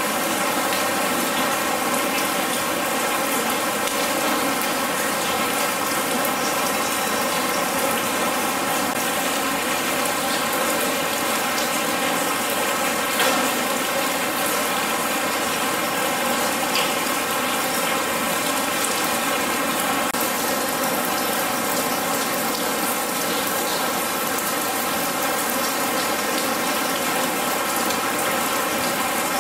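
Steady simulated rain falling on a corrugated metal roof and wet wire mesh, an even patter with no let-up.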